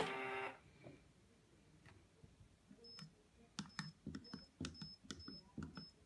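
Buttons pressed on a Zipato mini keypad: about six quick presses in the last three seconds, each a click with a short high beep. A loud pitched sound carrying over from before cuts off about half a second in.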